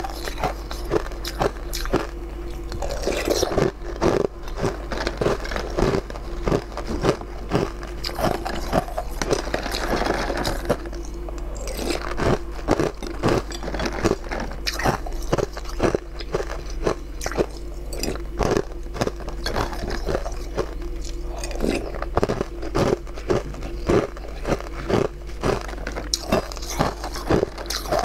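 Close-miked eating: rapid, irregular crunching bites and chewing, many sharp crunches a second.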